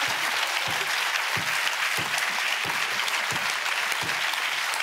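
Studio audience applauding: a steady mass of clapping, with a few faint voice sounds underneath.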